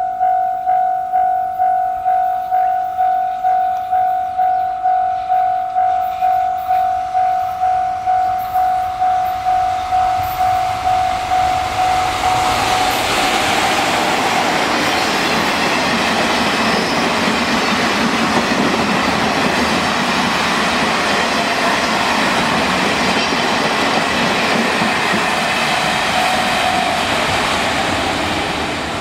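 A Japanese level-crossing alarm rings with an even pulsing tone, about one and a half strokes a second. From about twelve seconds in, an EF66 electric locomotive hauling a train of Wamu 80000 covered freight wagons passes close by, loud, with the wheels clattering over the rail joints. The alarm goes on faintly under the passing train.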